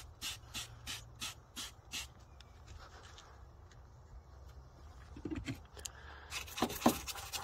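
Hand-held trigger spray bottle squirting liquid onto a plastic engine airbox, about three quick sprays a second, stopping about two seconds in. Near the end a brush starts scrubbing the wet plastic with a fast rhythmic rubbing.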